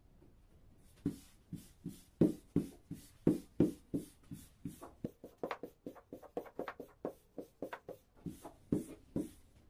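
Long, thin wooden rolling pin worked back and forth over a floured stack of baklava dough sheets on a wooden table: a run of short, dull knocks, about three a second, starting about a second in.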